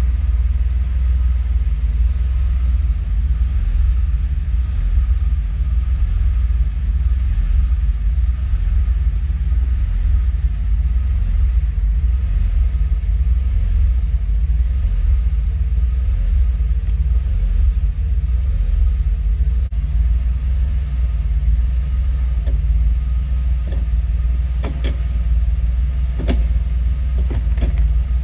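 1981 DeLorean DMC-12's 2.85-litre PRV V6 idling steadily after a cold start, heard from inside the cabin as a deep, even rumble. A few sharp clicks come near the end.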